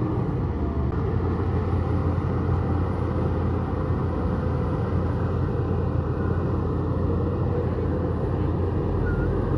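Bulldozer's diesel engine running steadily under load, a continuous low rumble.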